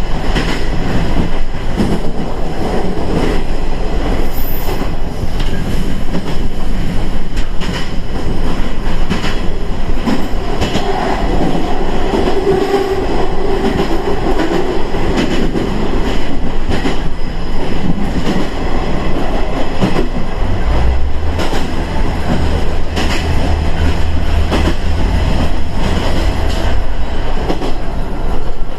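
KiHa 110 series diesel railcar running along the line, a steady rumble with wheels clicking over rail joints. A whine rises in the middle, and a low steady hum comes in about two-thirds through.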